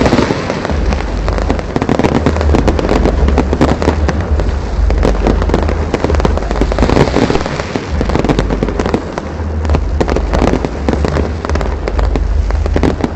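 Fireworks display going off, a dense run of pops, crackles and bangs with deep booms underneath.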